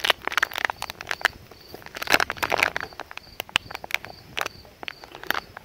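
Plastic packaging of sliced bologna crackling and crinkling as it is handled and pulled apart, in irregular bursts of clicks. Underneath, an insect chirps in a steady, even rhythm.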